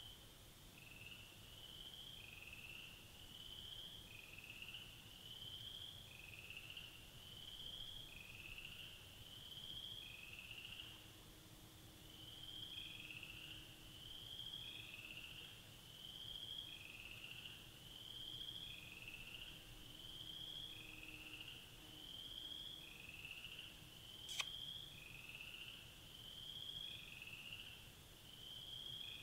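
A steady run of short, high, rising peeping calls from a small animal, about one and a half a second without a break, with one sharp click near the end.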